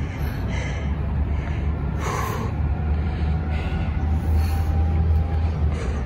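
A woman breathing hard after a run, gasping in and out about once a second as she recovers, over a steady low rumble.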